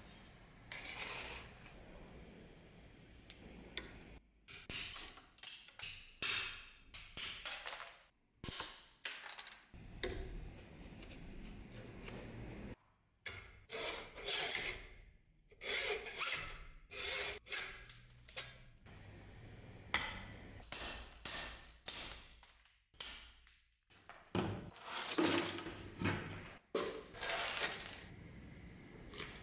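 Small hacksaw sawing through the plastic handle and pins of a rusty hunting knife clamped in a vise, in runs of quick back-and-forth strokes broken by short pauses.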